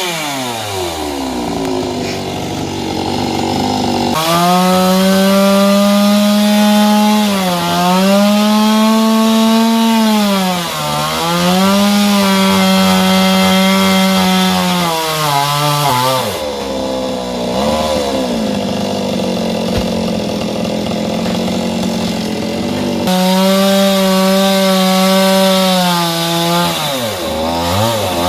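Chainsaw running at high revs while cutting a coconut palm. Its pitch sags briefly several times as it bogs down in the cut. It drops back to a lower speed about a second in and again for several seconds in the middle.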